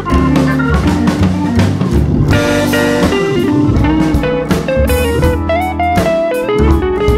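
Background music: a guitar playing a melody over a drum beat, in a bluesy style.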